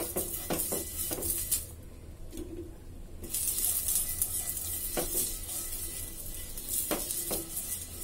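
Oil sizzling on a hot iron griddle as a cut onion half is rubbed over it to grease it, with soft scraping strokes of the onion on the pan. The sizzle drops out briefly near two seconds in.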